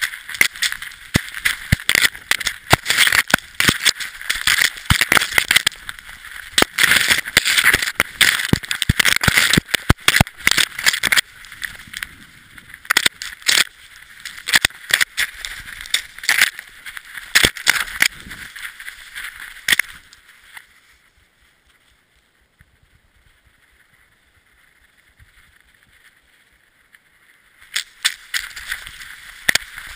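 Camera on a running sled dog's harness rattling and knocking, with snow hissing and scraping against it as the dog bounds through deep snow. The noise stops for about seven seconds about two-thirds of the way through, then starts again.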